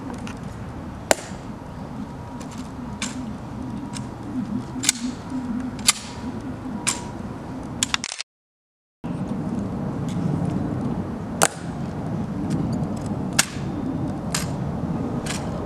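Sharp clicks of soldiers' heel taps striking the stone plaza in a slow marching cadence, roughly one a second, over a low steady outdoor rumble. The sound cuts out completely for about a second just after the middle.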